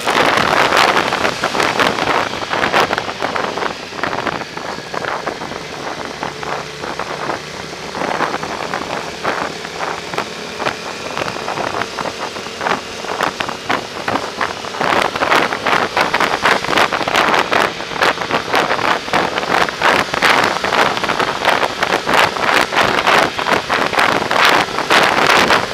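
Wind buffeting the microphone of a camera on a moving Yamaha motorcycle, with the bike's engine running underneath. The wind eases for several seconds in the middle and grows louder again about fifteen seconds in.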